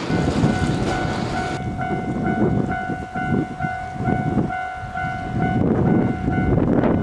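Japanese railway level-crossing alarm ringing in a steady repeated ding-ding, about two and a half strikes a second, starting about one and a half seconds in, over a low rumbling noise.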